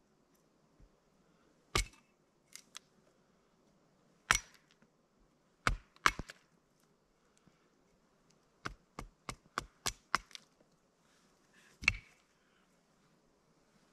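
A hatchet chopping wood into kindling: sharp chops a second or two apart, then a quick run of about eight lighter strikes, and one more loud chop near the end.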